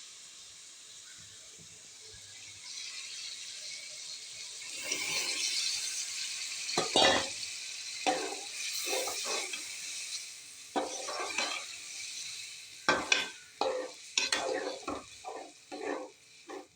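Aloo matar curry sizzling in the pan while a metal spoon stirs it. From about five seconds in, the spoon knocks and scrapes against the pan again and again.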